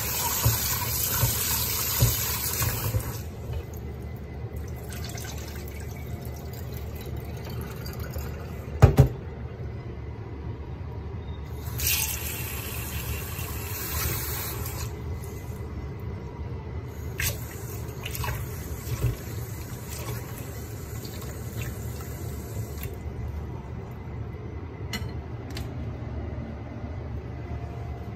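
Kitchen mixer tap running into a glass bowl in a stainless steel sink, turned on and off: water runs for the first three seconds and again from about twelve to fifteen seconds in. A sharp knock comes about nine seconds in, with a few light clinks later.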